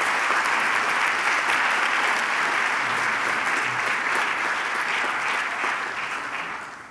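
Audience applauding: dense, steady clapping that fades away near the end.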